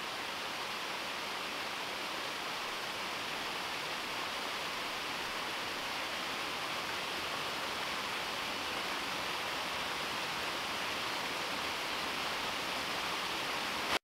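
Small waterfall splashing steadily over rocks into a pond, a constant rush of falling water.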